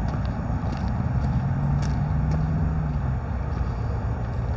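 Low, steady rumble of a motor vehicle's engine, its pitch rising slightly and holding through the middle, with a few faint clicks over it.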